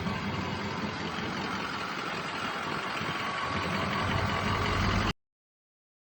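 2004 Ford F350's 6.0 L Power Stroke V8 diesel engine running, growing louder about four seconds in, then cut off abruptly about five seconds in.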